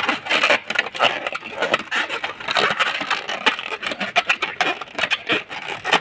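Long latex modelling balloon being twisted and wrapped by hand: the rubber rubs and creaks against itself in a dense, irregular run of scratchy sounds.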